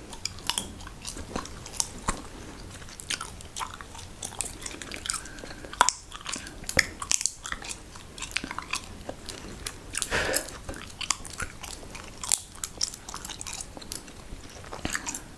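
Close-miked ASMR sounds: irregular clicks, pops and crackles right at the microphone, like ear-cleaning or mouth sounds, with no steady rhythm.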